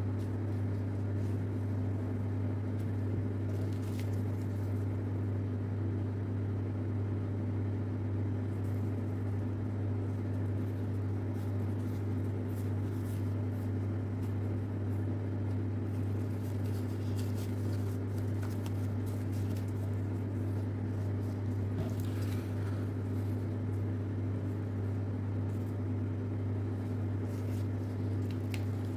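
A steady low hum runs throughout, with faint crinkles and taps now and then as paper is creased by hand.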